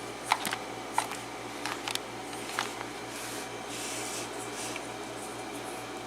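Small sharp clicks and rattles from handling and starting to take apart a Schlage KIK lock cylinder, with three clearer clicks in the first three seconds and a short rustle near the middle.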